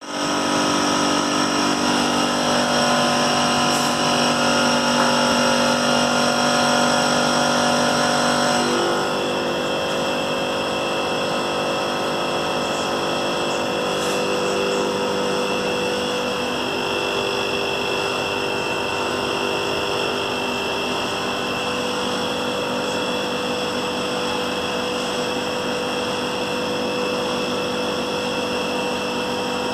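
Elgin inverter air conditioner running with a steady whine of several tones over a hiss; about nine seconds in, the tones shift to a new set, as when the inverter changes speed. The owner of the 18-day-old unit presents it as an abnormal noise.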